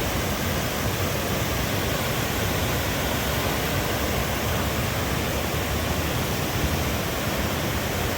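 River swollen and muddy after heavy rain, rushing loudly over its falls: a steady, unbroken rush of water.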